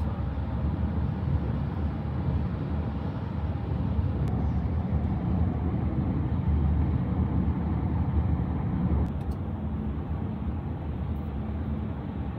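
Steady road and engine noise inside a Honda car's cabin at highway speed: a low rumble with tyre hiss over it.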